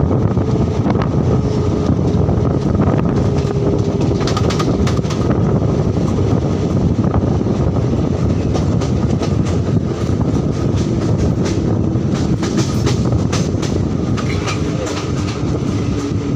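Indian Railways express passenger train running at speed, heard from the open side of the moving coach: a loud, steady rumble of wheels on rails. Clusters of sharp clicks and knocks run through it as the wheels pass rail joints.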